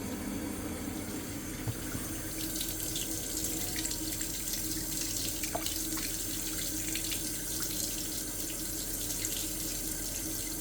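Hot water tap running steadily into a sink, a rushing that gets a little brighter about two seconds in, over a steady low hum. The tap is drawing hot water from a repaired combi boiler, and the water is warming.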